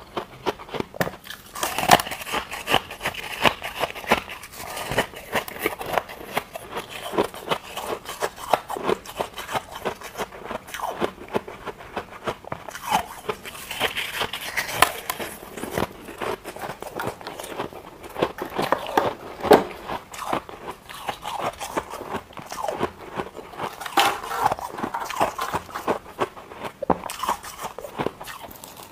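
Freezer frost ice being bitten and chewed: dense, irregular crisp crunching and crackling, bite after bite.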